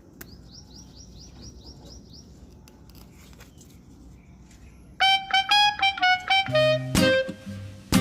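A run of short rising bird-like chirps, about four a second, over a faint background. About five seconds in, loud brass-like music of short, clipped notes starts abruptly.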